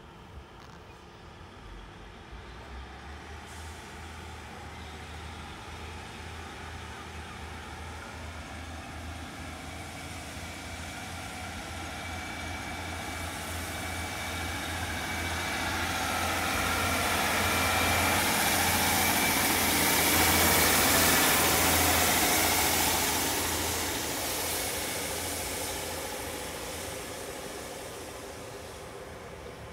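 Two-car Class 150 Sprinter diesel multiple unit pulling away from a station, its underfloor Cummins diesel engines working under power. It grows louder as it nears, passes close by about two-thirds of the way through with engine and wheel noise at their loudest, then fades as it moves off.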